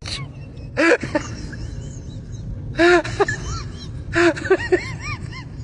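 A pet's short whimpering cries, each rising and falling in pitch, in small groups of several at a time, over a steady low hum.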